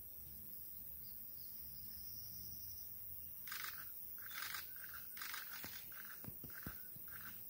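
An animal call: short notes repeated roughly twice a second, starting about halfway through, with a few faint clicks among them.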